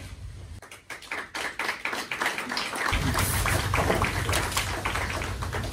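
A small group applauding, starting about half a second in.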